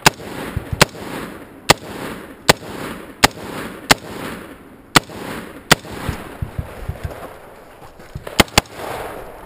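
AR-15-style rifle fired close to the microphone at a steady pace, about one shot every 0.8 s for eight shots. After a pause of over two seconds comes a quick pair near the end. Each shot is followed by a short echo.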